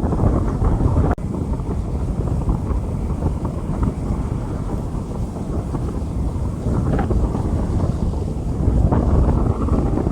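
Steady rain on a street, heavily mixed with low wind rumble buffeting the microphone. The sound cuts out for an instant about a second in.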